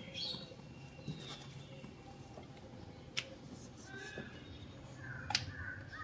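Two sharp metallic clicks, about two seconds apart, as a wire frying skimmer knocks against a steel bowl, over a faint low hum.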